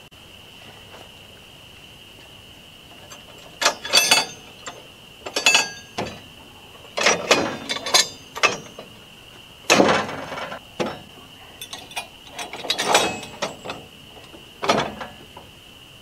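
Metal clanks and ratchet clicks from the steel log stop and cant clamp of a Norwood HD36 portable bandsaw mill as they are lowered and swung into place, with about a dozen short, sharp knocks at irregular intervals. A steady high insect drone runs behind them.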